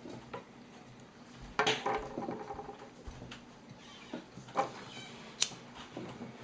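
Scattered light clicks and knocks from handling small objects by hand. The loudest comes about one and a half seconds in and has a brief ring after it; two sharper clicks follow near the end.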